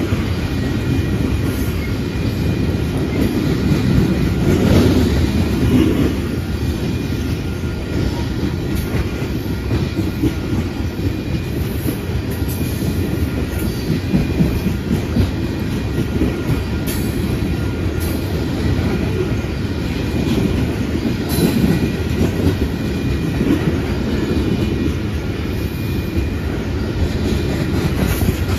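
Loaded coal gondola cars of a freight train rolling past close by: a steady rumble of steel wheels on rail with irregular clatter, and faint high steady tones running through it.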